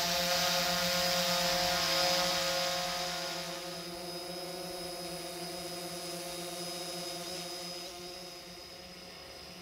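A steady mechanical engine drone with a hiss over it. It is loudest for the first few seconds, then eases off and fades further near the end.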